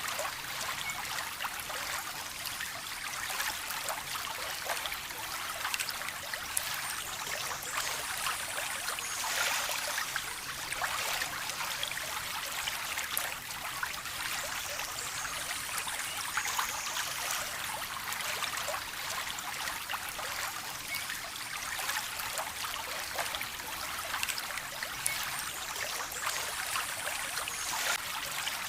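Running water trickling steadily, as in a small stream, with many small splashes.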